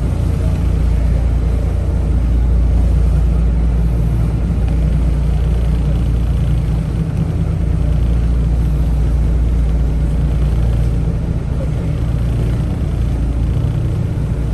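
Sightseeing boat's engine running steadily, a constant low drone with wash and wind noise above it, heard from on board.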